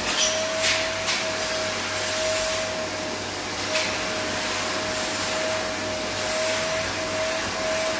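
Vacuum cleaner running with its hose nozzle drawn over a sofa: a steady rush of suction with a constant motor whine. There are a few brief louder hisses in the first second and again about four seconds in.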